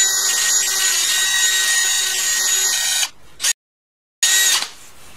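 Wire-feed welder arc welding a steel exhaust header pipe: a steady hiss for about three seconds that cuts off, then a brief second burst of the same sound after a short break.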